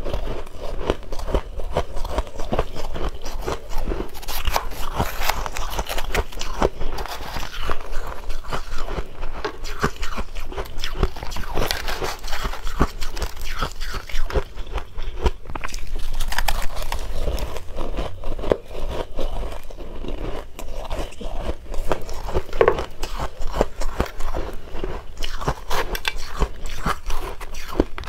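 Close-miked crunching and chewing of mouthfuls of shaved ice dusted with matcha powder: a dense, steady run of crisp crackles.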